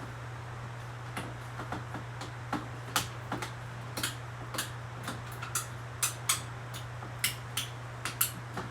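Irregular light clicks and taps, sparse at first and coming more often from about a second in, over a steady low hum.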